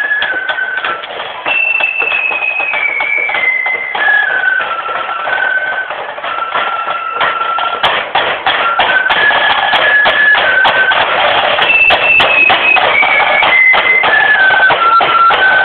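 Marching flute band playing a tune, the flutes in unison over side drums and bass drum beating a march. The melody descends in steps from a high phrase, and the same phrase comes round again about twelve seconds in.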